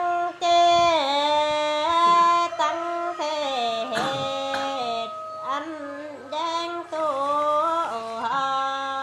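A solo voice singing a Dao folk song (hát Dao), unaccompanied: long held notes that slide between pitches, in several phrases with short breaks between them.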